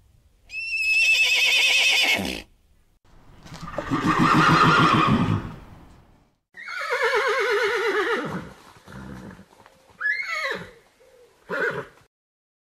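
Horse whinnying five times: three long calls, the first and third quavering and the third falling in pitch, then two short calls near the end.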